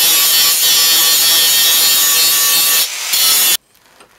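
Angle grinder with a thin cutting disc cutting through a pattern-welded steel bar held in a vise, a loud steady grinding whine. It dips briefly a little before three seconds in, picks up again, then stops abruptly about three and a half seconds in, leaving a few faint clicks.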